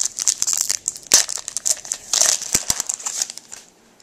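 Foil hockey-card pack wrapper being torn open and crinkled by hand: a run of sharp crackles with louder rips about a second in and just after two seconds, dying away near the end.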